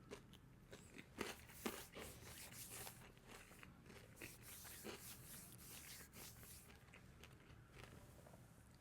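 Faint crunching and chewing of toasted bread, with a few soft crisp bites and mouth sounds scattered through.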